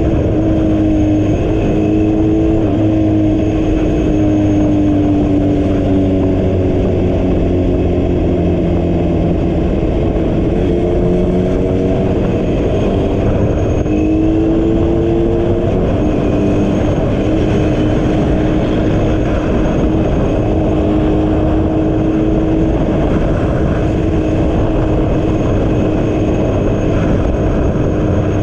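A motor vehicle on the move: a steady rush of wind and road noise over an engine hum that rises and falls in pitch several times as the speed changes, with one long climb that drops off suddenly about two-thirds of the way through.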